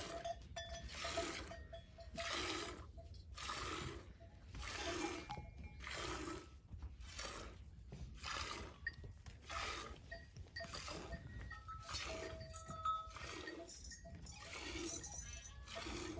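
Milk squirting from a cow's teats into a metal bucket as it is milked by hand: a short hissing splash about once every second and a bit, in an even rhythm.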